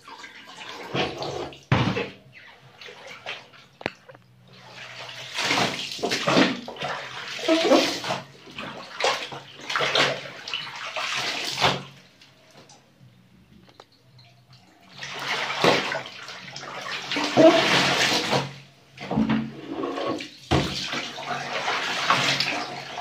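Water splashing and sloshing in a plastic washtub as wet laundry is scrubbed and lifted by hand, in irregular bunches with a lull about halfway through. Near the end, water streams out of a perforated plastic laundry basket back into the tub.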